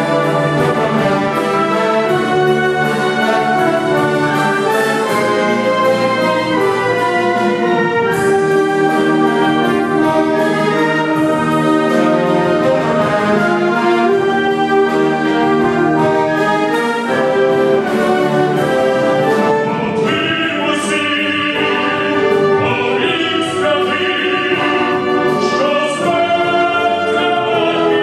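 Concert wind band of brass and woodwinds playing a slow, sustained song accompaniment. About two-thirds of the way through, a male solo voice joins over the band.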